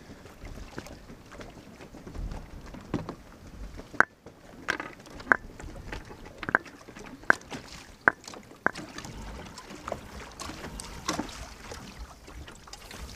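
Kayak on choppy, wind-blown water: a string of sharp knocks and slaps against the hull, about one a second, from about four to nine seconds in, over a low rumble of wind on the microphone.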